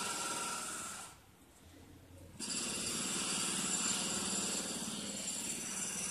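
Emu drumming: a low, rapidly pulsing thrum in two long bouts, breaking off about a second in and starting again abruptly a second and a half later.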